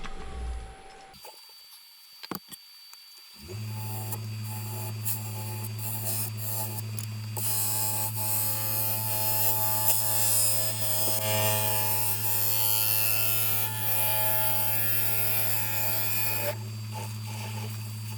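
Wood lathe motor humming steadily, starting a few seconds in and stopping just after the end, while a gouge cuts wet poplar for a stretch in the middle with a loud hissing scrape.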